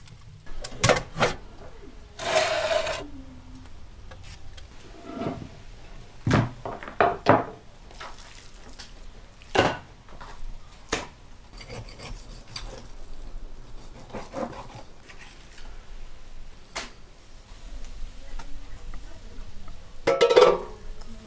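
A string of separate knocks, rubs and clatters from cooking work: raw meat and tools handled on a wooden chopping board, with a louder clatter of metal cookware near the end.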